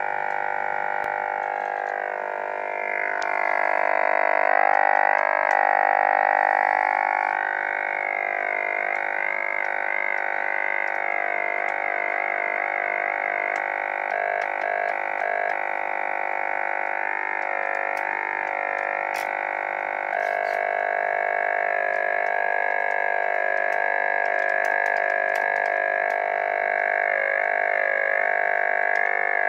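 Uniden BC125AT handheld scanner's speaker playing a Traxxas 27 MHz RC transmitter's control signal as a steady, buzzy drone of many stacked tones. It cuts in suddenly at the start, and the tones warble and shift as the transmitter's wheel and trigger are worked.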